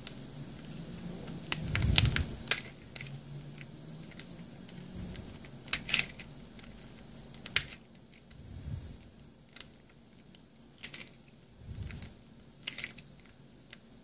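A plastic 2-Layers Star Super Square twisty puzzle being turned by hand: irregular sharp clicks and clacks as its layers slide and snap into place, with a few dull thumps from handling.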